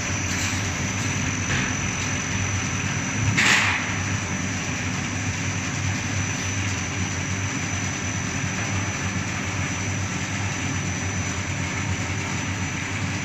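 Steamed-bun production line machines running steadily, a low hum under a constant high-pitched tone, with a brief hiss about three and a half seconds in.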